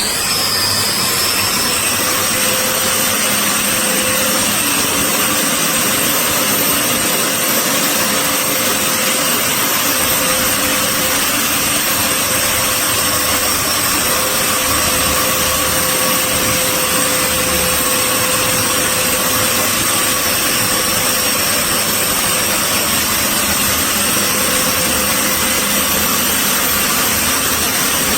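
Electric 850-watt drywall sander running at a constant speed: a steady motor whine and rushing air with a few fixed high whistling tones, starting suddenly and holding an even level throughout.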